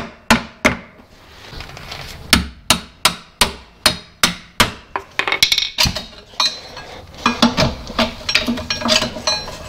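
Hammer tapping the rusted-in steel U-bolts out of a Morris Minor's rear leaf-spring mounts: two strikes, then an even run of blows about two or three a second. In the second half the blows give way to lighter, quicker metallic knocks and clinking.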